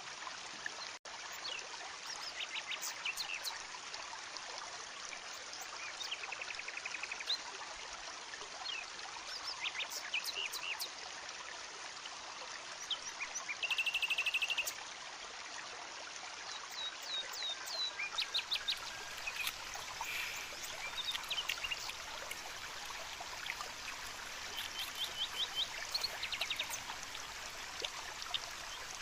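Forest ambience: a steady rushing hiss, with birds chirping in short, rapid series of high notes throughout and a brief buzzy trill near the middle.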